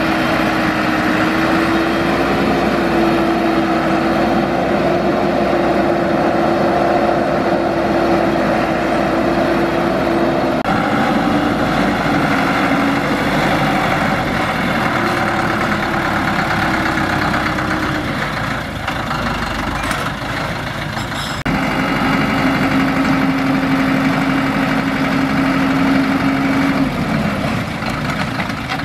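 Diesel engine of a Thaco Forland dump truck running steadily, its tone shifting a few times. Near the end the loaded bed is tipped up to dump its soil.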